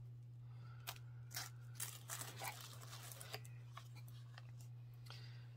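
Light clicks and soft rustling of packaging being handled as a small boxed jewelry item is lifted out of a subscription box, over a steady low hum.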